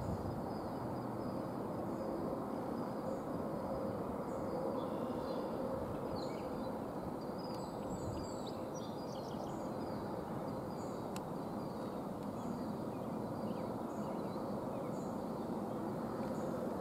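Steady distant rumble of a double-stack intermodal freight train's cars rolling away along the track. Birds chirp now and then above it.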